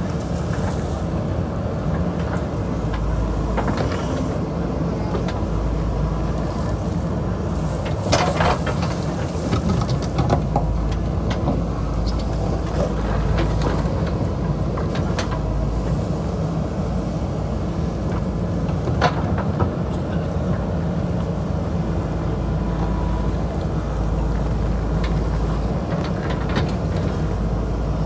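JCB 3DX backhoe loader's diesel engine running steadily under load as the backhoe digs. A few sharp knocks and clatters of the bucket and stones against rock come through, the loudest about eight, ten and nineteen seconds in.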